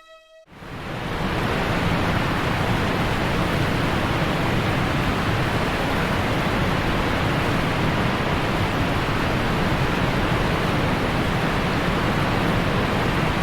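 Heavy rain and hail pouring down in a steady, dense hiss with a low rumble, setting in about half a second in.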